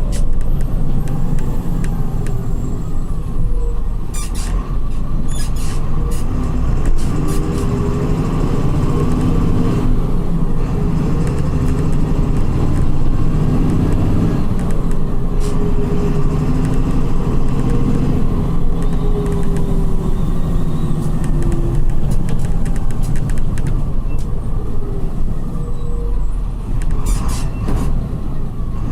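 Diesel engine and ZF gearbox of a Volkswagen 17.230 EOD coach chassis running under way, the engine pitch rising and falling several times as the coach is driven, with a few short clicks.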